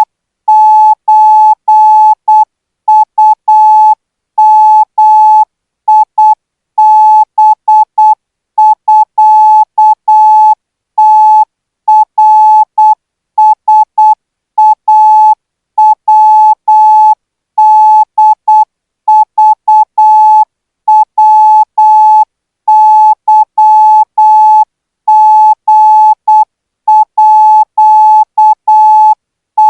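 Morse code practice signal in Thai Morse: a single steady beep keyed on and off in short dots and longer dashes, grouped into characters with gaps between them, sent at 12 words per minute.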